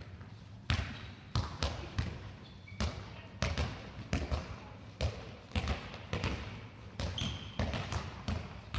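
Handballs thudding irregularly, about two a second, as they are passed, caught and bounced on the floor of a reverberant sports hall, with a brief shoe squeak on the court.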